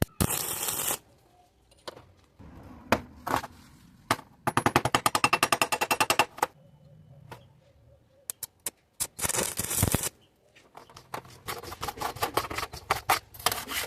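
Harsh mechanical noise in separate bursts, each about a second long, with a rapid rattling run of about ten strokes a second in the middle.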